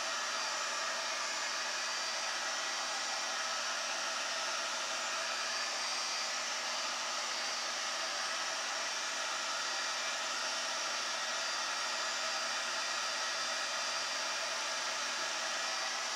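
Handheld electric heat gun running steadily, a constant blowing rush with a faint motor whine.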